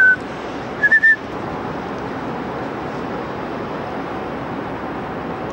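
A person whistling a few short notes of a tune, one right at the start and a rising pair about a second in, then a steady wash of outdoor city background noise.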